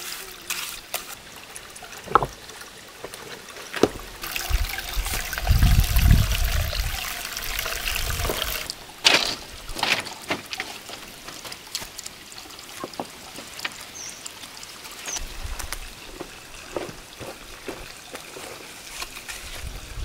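Water trickling steadily, with scrapes and sharp knocks from a trowel working wet mortar and stones being set down, and a few low thuds.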